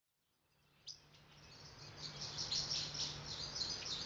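Birds chirping, fading in from silence, many short high chirps in quick irregular succession over a faint steady low hum.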